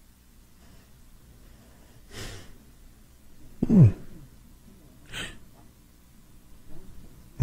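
A man sighing and breathing in a pause. There is a breathy exhale about two seconds in, then a short voiced sigh that falls in pitch a little before four seconds, the loudest sound here. Another breath follows about five seconds in.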